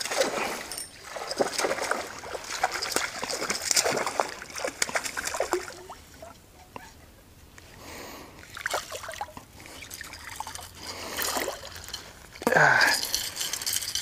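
A hooked chain pickerel splashing and thrashing at the water's surface as it is reeled in, in irregular bursts. There is a lull a little past the middle, and the loudest splash comes near the end as the fish is lifted out.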